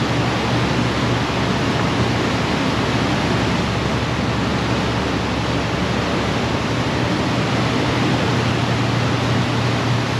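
Boat under way: a steady rush of wind and water noise over a low, even engine drone.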